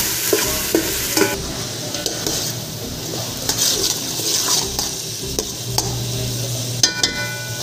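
Chopped tomato, onion and garlic sizzling in hot oil in a pot while a spoon stirs and scrapes them against the pan bottom, with a sharp knock of the spoon on the pot about seven seconds in.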